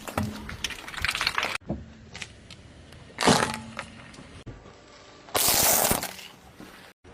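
Objects being crushed, cracking and crunching, in several short clips cut together. There are sharp crackles, a loud crack a little before the middle, and a burst of dense hissing crunch near the end.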